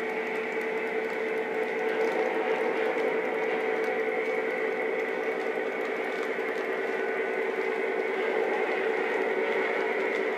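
O-gauge model train cars rolling past on the track, a steady rumble with a steady hum through it.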